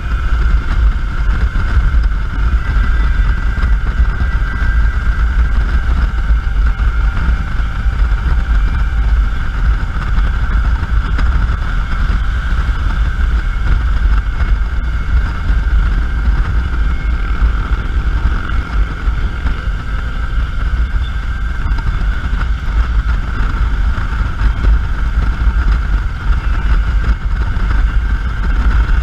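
Steady wind buffeting on a GoPro's microphone on a motorcycle riding at a constant speed, a heavy low rumble with the bike's engine and road noise mixed beneath it.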